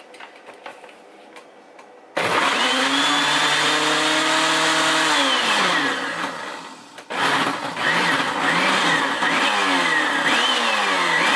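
Countertop blender running on frozen fruit and ice: after a few light clicks, it starts suddenly about two seconds in, its motor pitch sags and it briefly cuts out a little after the middle, then it restarts with its speed rising and falling over and over as the ice gets stuck in the blade.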